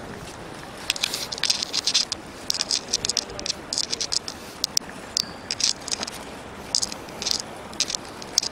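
Footsteps on pavement: a gritty shoe scuff about twice a second over a faint steady background hiss.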